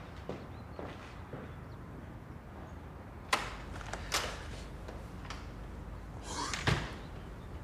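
Faint high-heel footsteps on a wooden floor, then two sharp knocks about a second apart. Near the end comes a breathy sigh and a thud.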